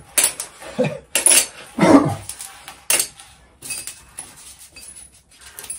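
Steel bolts clinking as they are dropped one by one into a magnetic parts tray: a few separate sharp metallic clinks spread over several seconds.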